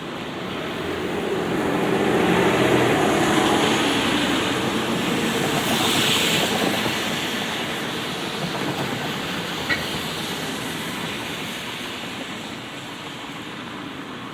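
Light rain falling steadily while a vehicle passes on the wet street, swelling up over the first couple of seconds and fading slowly away. A single short click about two-thirds of the way through.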